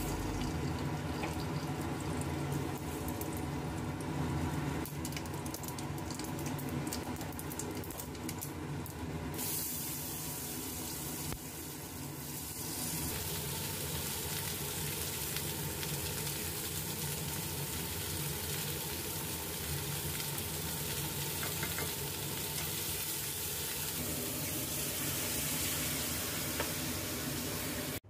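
Whole mustard seeds and a dried red chilli sizzling in hot oil in a steel kadai, with many sharp crackles and pops for the first several seconds, then a steadier sizzle as raw mango pieces fry and are stirred with a wooden spatula. A faint steady hum runs underneath.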